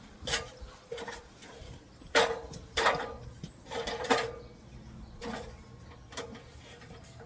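A series of irregular metal knocks and clanks, each with a short ring, made while climbing up onto a house roof carrying a cutting tool. The loudest knocks come about two, three and four seconds in.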